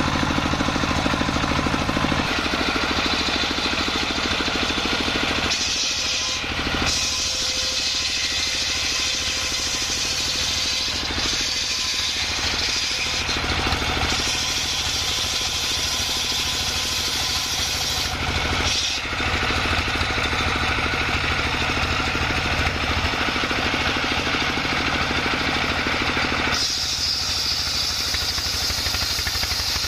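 Stationary single-cylinder engine running a homemade circular sawmill while the large saw blade rips coconut-wood planks. The engine beats steadily under load beneath a high cutting noise from the blade, which drops out briefly a few times between passes.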